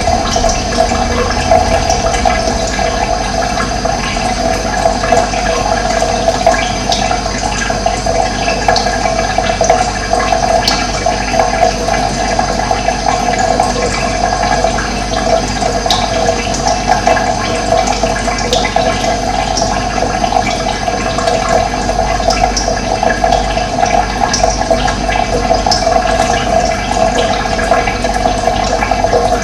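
Running water flowing steadily with a constant gurgling rush. A few faint, short, high chirps are scattered through it, which fit small birds.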